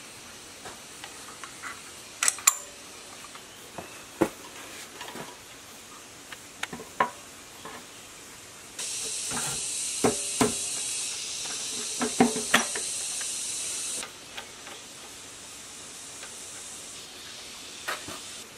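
Scattered metal clicks, clinks and knocks from parts being fitted to a 1115 single-cylinder diesel engine's gear end: small steel governor balls set into their plate on a gear, then the gear cover put on the block. A steady hiss comes in about nine seconds in and cuts off suddenly about five seconds later.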